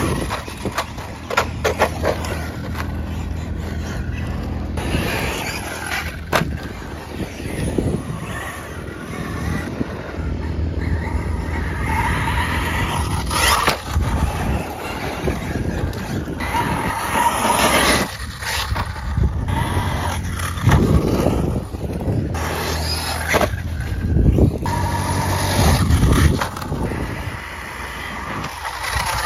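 Large electric RC trucks being driven hard over gravel, dirt and rough grass: motors whining up and down with the throttle, and tyres scrabbling and crunching on the loose ground.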